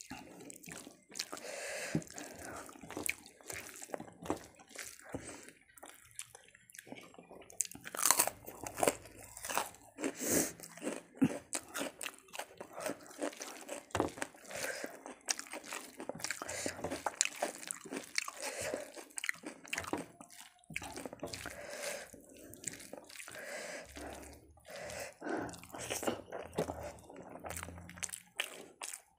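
Close-miked eating: crunchy bites and chewing, irregular and continuous.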